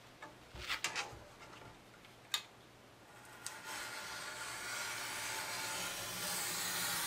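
A few light knocks as the board and ruler are handled, then a blade drawn along a ruler through board in one long, steady scraping stroke of about four seconds that grows slowly louder.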